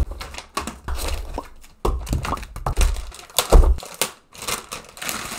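Packaging being unpacked from a cardboard box: paper booklets and foam inserts shuffled, a plastic-bagged unit lifted out with crinkling plastic, and irregular soft thunks of things against cardboard, the loudest about three and a half seconds in.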